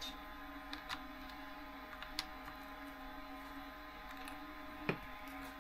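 Faint small clicks and taps of a hex T-wrench and metal parts being handled on an RC truck, with one sharper click about five seconds in, over a steady low hum.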